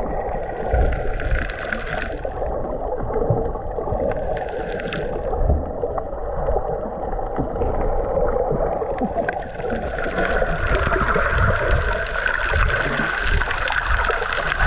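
Water rushing and gurgling along the hull of a sail yacht under way, a steady wash with irregular low rumbles underneath.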